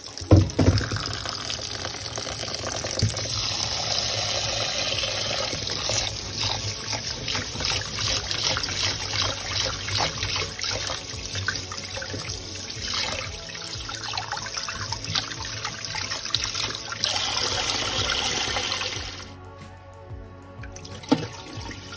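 Kitchen tap running into a stainless steel bowl of jasmine rice while a hand swishes the grains to rinse them, with a knock from the bowl at the start. The running water stops about nineteen seconds in, and a second short knock follows near the end.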